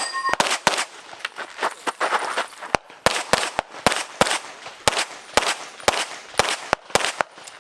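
Rapid pistol fire from an Open-division IPSC race gun, a compensated handgun: a fast string of about twenty shots, many fired in quick pairs, with short gaps between target groups.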